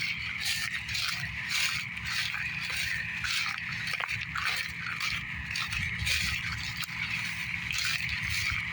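John Deere combine harvester running while harvesting barley: a steady low rumble under a constant high whine, with an irregular hiss pulsing over it.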